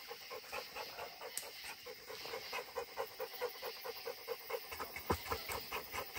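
Redbone coonhound panting fast and evenly, about five breaths a second, a hot dog catching its breath.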